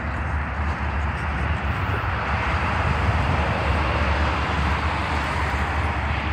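Freight train cars rolling past at speed: a steady low rumble with the clatter of steel wheels on the rails.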